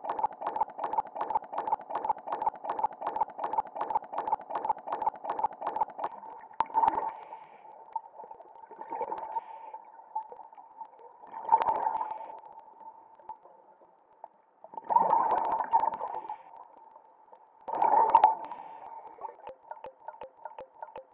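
Underwater, scuba regulator exhaust bubbles gurgle in five loud bursts, one for each breath out, every two to three seconds. Before them, for about the first six seconds, there is a rapid steady pulsing of about five beats a second. A faint steady tone runs under everything.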